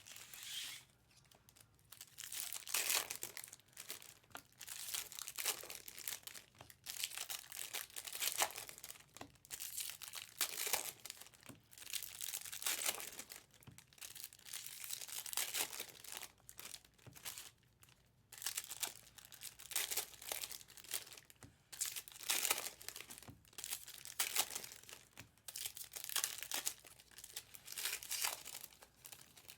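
Foil trading-card pack wrappers being torn open and crinkled, in a run of irregular rustling, tearing bursts.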